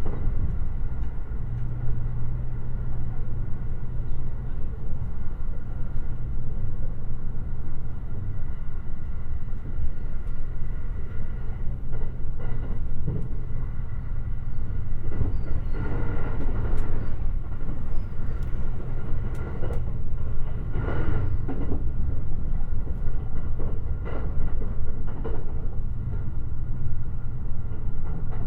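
JR Limited Express Shirasagi electric train running at speed, heard from inside: a steady rumble of wheels on rail with a low hum, and a few brief swells of noise in the second half.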